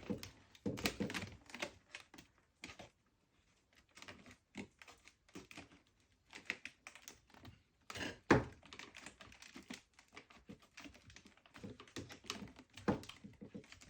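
Irregular clicks, crackles and scraping of a new splint strand being worked and pulled through the tight, brittle old splint weave of a chair seat, with one louder knock about eight seconds in.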